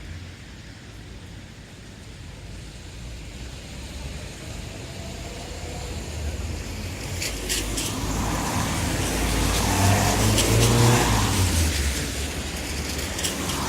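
Town traffic on a wet road: a motor vehicle approaches and passes, its engine rumble and the hiss of tyres on the wet surface building steadily to a peak about ten seconds in, then easing off as another vehicle comes close near the end.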